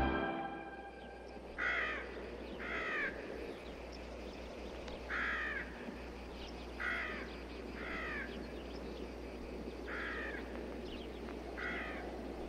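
Crow cawing: about seven short harsh caws a second or two apart, some in pairs, over a steady faint hiss.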